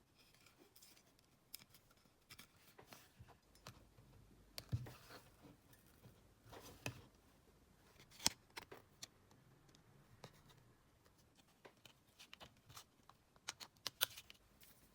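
Quiet, irregular clicks and light knocks of small hard parts being handled and fitted by hand, with a few sharper clicks about a third, halfway and near the end.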